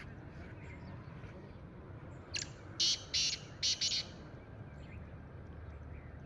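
Black francolin calling: a single phrase of four or five short, scratchy notes about two and a half seconds in, over faint chirping of small birds.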